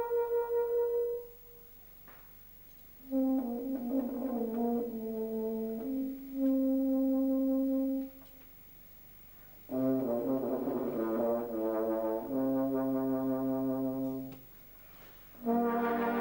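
Euphonium solo with brass band accompaniment: sustained melodic phrases with deeper bass notes under some of them. The phrases are separated by three short pauses.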